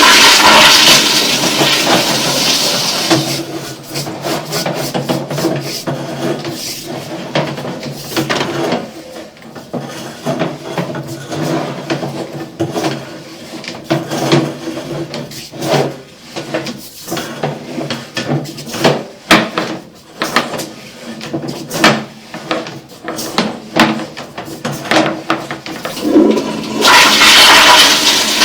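Water rushing and gurgling as a toilet is flushed into the sewer line, loudest for the first few seconds and again near the end, with irregular knocks in between.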